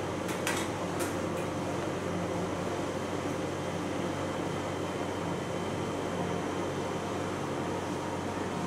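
Steady machine hum, even and unchanging, with a few light clicks about half a second and a second in.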